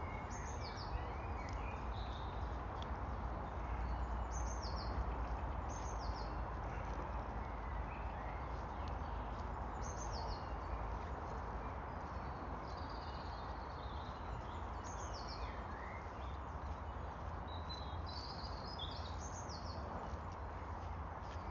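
Wild songbirds chirping and calling in short high notes, scattered throughout, over a steady low noise.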